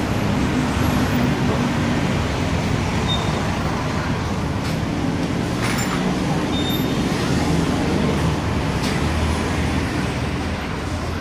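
Honda Forza scooter's engine idling steadily, a low hum with a few light clicks over it.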